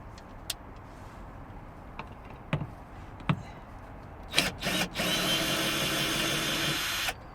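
Cordless drill with an Allen bit undoing a screw in a car door: a few small clicks, two short spurts of the motor, then a steady run of about two seconds that stops near the end.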